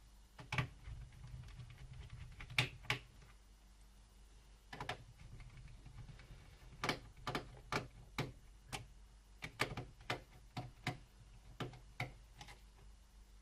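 Small sharp clicks and taps at irregular intervals as a screwdriver works screws out of a laptop's plastic bottom case: a few scattered ones at first, then a quicker run of them through the second half.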